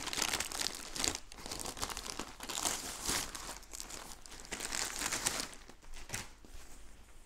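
A thin white plastic mailer bag crinkles and rustles in bursts as hands work a packed bivi bag out of it. The crinkling dies away a little after six seconds in.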